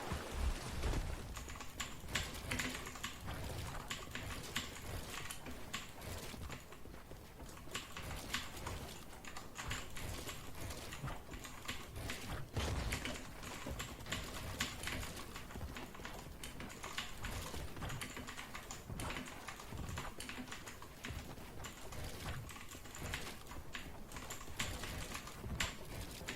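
Typing on a Dierya T68SE mechanical keyboard with blue switches: a continuous irregular stream of sharp key clicks.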